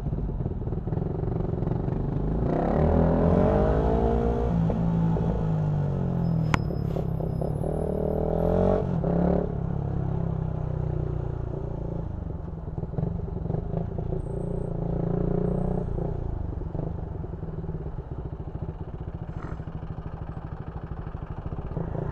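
Small motorcycle engine running under way with road and wind noise, its note rising and falling as it revs up and eases off between about two and nine seconds in, then running steadier. A single sharp click about six and a half seconds in.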